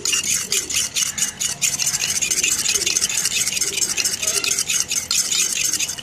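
Metal spoon stirring baby-bird hand-feeding formula in a stainless steel bowl, scraping and clinking against the sides in a fast, continuous run. This is the mixing stage, working the formula until it thickens.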